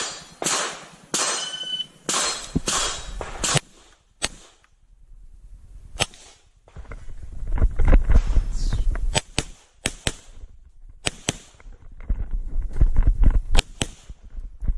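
Pistol shots from a CZ 75 Tactical Sport run through an IPSC stage: sharp reports, singly and in quick pairs, spread across the whole stretch, with a low rumble between the strings of shots.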